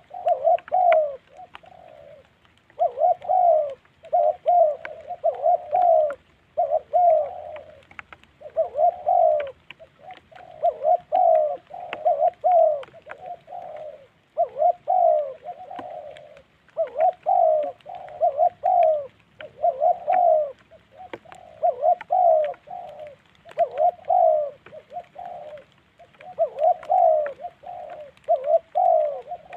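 Spotted dove cooing over and over: groups of three or four low coos every couple of seconds, with short gaps between the groups.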